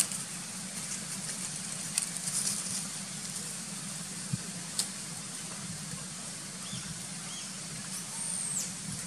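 Steady outdoor background hiss with scattered crackles and rustles of dry leaves as long-tailed macaques move over the leaf litter. A few faint high chirps and a short falling whistle come near the end.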